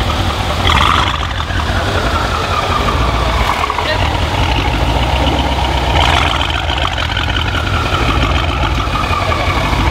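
Mercedes-Benz S63 AMG's twin-turbo V8 running through an HMS aftermarket exhaust, idling with a strong low rumble. It is blipped about a second in and again around six seconds in, and the revs fall away after each blip.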